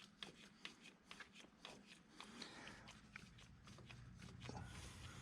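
Faint, irregular small clicks and rubbing of hands turning a spin-on oil filter onto its threaded mount by hand. A low hum comes up near the end.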